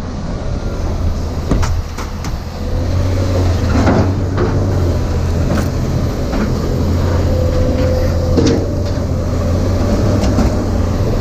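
Vehicle driving, a strong steady low engine and road hum with scattered knocks and rattles.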